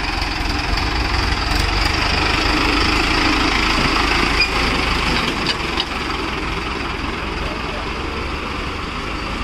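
Mahindra tractor's diesel engine running steadily.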